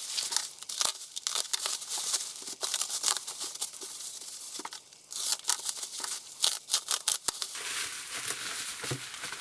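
Packaging being torn open and unwrapped by hand, with many short crackles and rustles.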